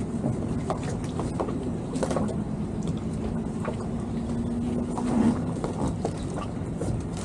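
Towboat's engine running steadily at low speed, a low rumble with a faint held tone that swells about five seconds in, with scattered knocks and clicks from the lines and fenders between the two hulls.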